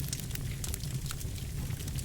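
Birchwood fire crackling in a fireplace: frequent quick pops and snaps over a steady low rumble of the burning fire.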